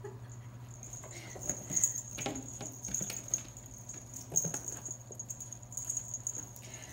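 Cloth blanket rustling and flapping as it is waved, with small patters, scrabbles and light thumps from small monkeys moving on and under it. A thin steady high-pitched tone and a low hum run underneath.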